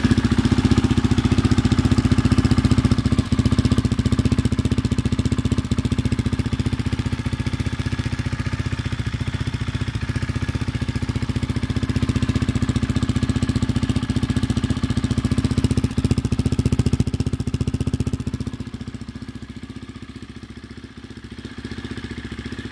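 Naza N5 250 (Hyosung 250) motorcycle's single-cylinder engine idling steadily through an aftermarket Akrapovic slip-on silencer, with an even exhaust pulse. It grows quieter and duller about three-quarters of the way through.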